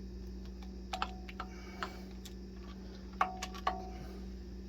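A few light, irregular metallic clicks and taps, some with a short ring, from hand tools working at a bolt snapped off in a small-block Chevy 350, over a steady low hum.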